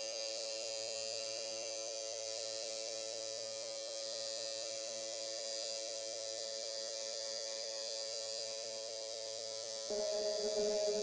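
Steady, buzzing meditation drone of sustained tones with many overtones. About ten seconds in, a second, louder layer of tones comes in.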